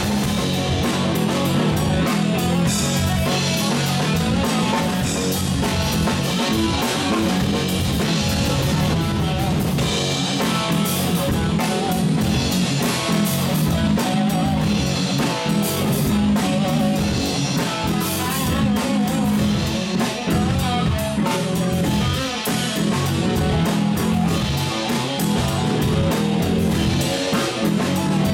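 Live rock band playing: a semi-hollow electric guitar over a drum kit and bass guitar, with steady loudness and a regular drum beat throughout.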